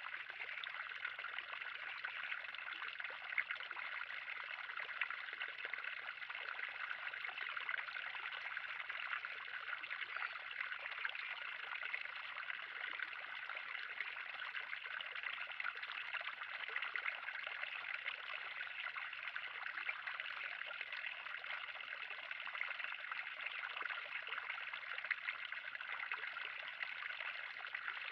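Water in a 3000-gallon backyard pond trickling and splashing steadily and without pause.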